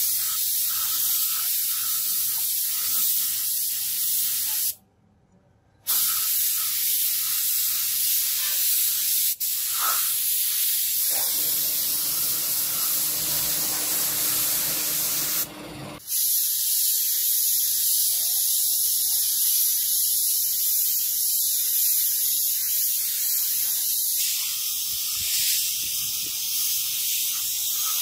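Paint being sprayed onto metal jack parts: a steady hiss, with a brief pause about five seconds in.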